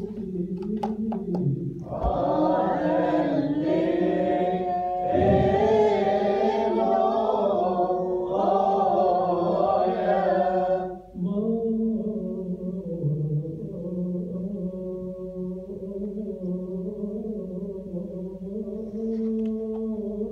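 Voices singing or chanting together in long, held notes. They are fuller and louder for the first half, then drop to a quieter, steady drone of held tones about eleven seconds in.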